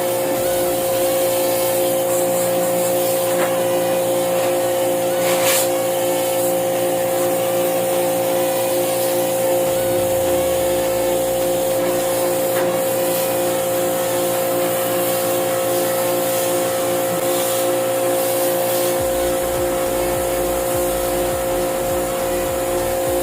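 Electric motor running with a steady whine of several fixed pitches over a hiss. A faint low tone slides downward about ten seconds in, and a low hum comes in near the end.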